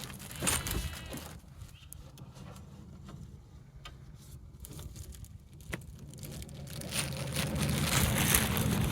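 Scattered clicks and knocks of parts and tools being handled, over a steady low hum. A broad hissing noise builds from about seven seconds in and becomes the loudest sound.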